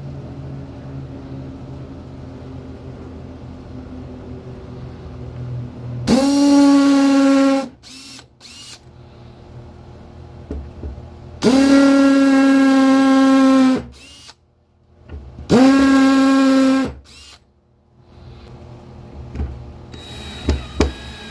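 Power drill run in three bursts of about one and a half to two seconds each, every burst spinning up quickly to a steady whine, drilling pilot holes into oak.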